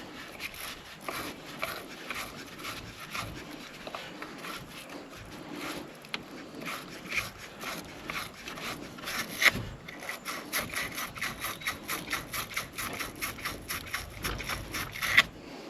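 Scrubbing strokes, cleaning corrosion off a tractor battery terminal: uneven at first, then quick and even, about five strokes a second, for the last several seconds.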